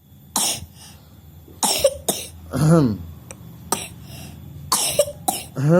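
A baby boy with a cough coughs repeatedly in short bouts of one to three sharp coughs. Twice a brief voiced sound with a bending pitch follows a bout.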